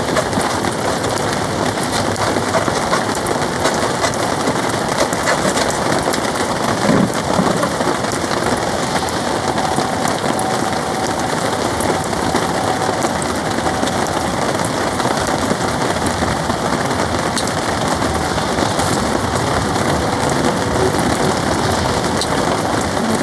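Heavy, steady rain beating on a polycotton (TC) car-side tarp.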